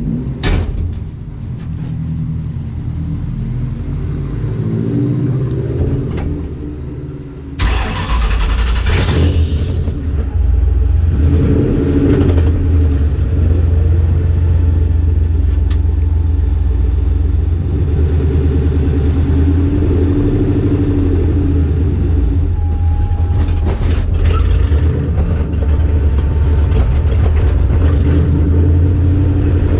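A two-valve V8 drag-car engine turning over for several seconds, then catching about seven and a half seconds in and running loud and steady on its first start.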